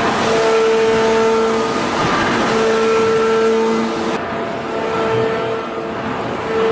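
Large hydraulic open-die forging press working a glowing steel bar: loud, steady machine noise with a mid-pitched hydraulic hum that cuts in and out every second or two as the press strokes.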